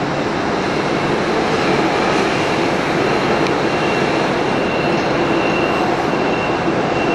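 Steady mechanical rumble and hiss of dockside machinery, with a faint high whine coming and going in the second half.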